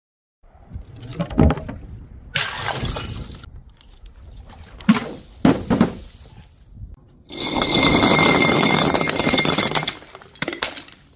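Glass bottles smashing and shattering: several separate crashes and sharp impacts, then one long, loud shatter with a ringing tone in the glass, followed by a few small clinks.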